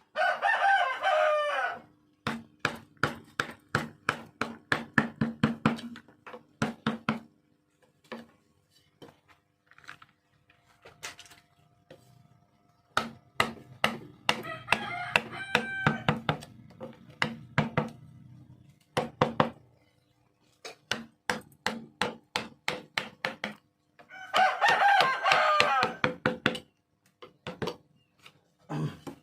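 A rooster crowing, one long call right at the start and another about 24 seconds in. Between the crows come long runs of rapid sharp knocks, several a second, mixed with shorter calls.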